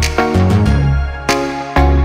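Background music with a steady beat and heavy bass notes.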